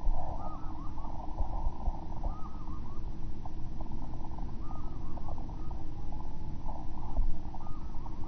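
Many short, arching chirping calls over a steady low rumble.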